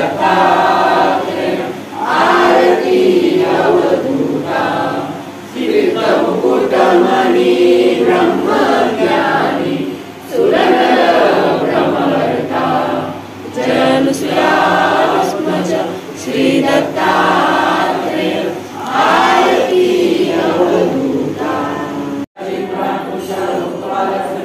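A group of voices singing a Marathi devotional aarti together in phrases a few seconds long, with short breaths between them. There is a momentary break in the sound near the end.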